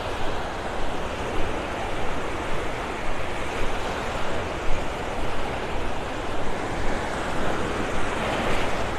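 Small Gulf of Mexico waves breaking and washing up on a sandy beach: a steady rush of surf.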